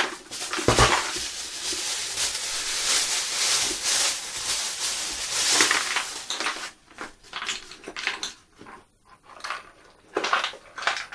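Unpacking noise: plastic packaging crinkling and rustling, with small loose metal rotary burrs clinking in their box. It is busy for the first six seconds or so, then thins to a few scattered clicks and rustles.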